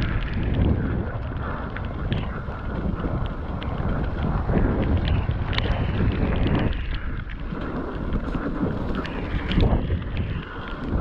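Mountain bike being ridden over rough trail: wind rumbling on the microphone, with tyre noise and frequent knocks and rattles from the bike.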